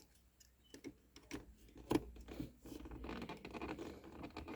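Small plastic parts of an automatic gear shifter clicking and scraping as the button and its spring are worked into the shifter handle: a few separate clicks, then a quicker run of rattling and scraping about three seconds in. The button will not seat because a piece of the old shaft is still stuck inside it.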